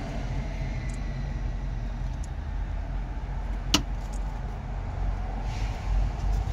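Steady low vehicle rumble, with one sharp click a little past the middle.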